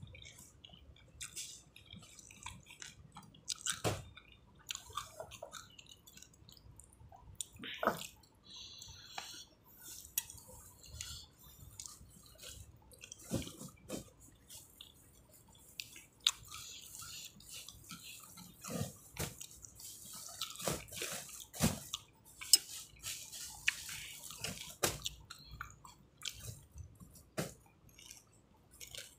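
A person eating fried noodles close to the microphone: irregular wet chewing and slurping, with scattered short clicks as a metal spoon works in the bowl.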